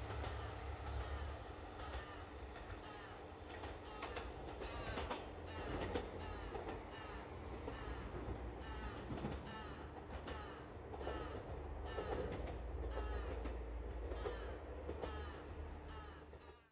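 A bird calling over and over, about two short harsh calls a second, over a low rumble.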